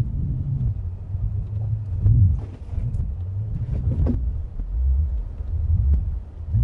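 Ford F-150 pickup driving over a rocky dirt trail: a low rumble of engine and tyres, with a few knocks and crunches from stones under the wheels a couple of seconds in and again around the middle.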